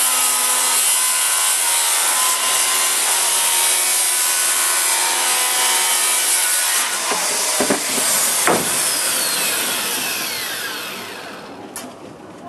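Corded circular saw running and cutting through a plywood sheet, with two sharp knocks near the end of the cut. The trigger is then released and the blade winds down, its whine falling in pitch as it coasts to a stop.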